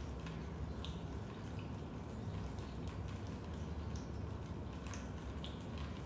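Raindrops dripping into a basement: many small, irregular drips over a steady low rumble.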